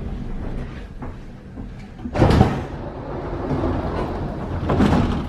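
Škoda Varsovia metro train's sliding passenger doors opening about two seconds in, a short loud rush of sound; a second, shorter burst follows near the end.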